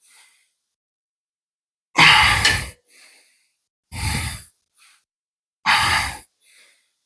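A man breathing heavily from cardio exertion: three loud, hard breaths about two seconds apart, each followed by a shorter, faint one.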